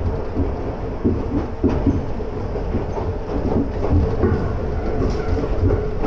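Inside a converted former Tokyu electric train car running at speed on the Iga Railway line: a steady rumble of wheels on rails with irregular clacks over rail joints.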